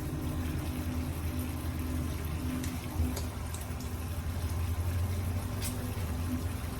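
Sardines in sauce simmering in a frying pan: a steady watery bubbling over a constant low hum, with a light tap about three seconds in.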